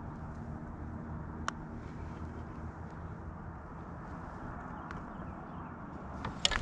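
Steady low outdoor rumble on the microphone, with one sharp click about a second and a half in and a few clicks near the end.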